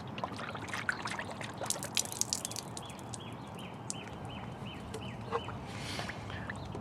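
Coolant being poured from a jug into a motorcycle's cooling system, gurgling and splashing as it fills. A run of short, high chirps sounds in the middle.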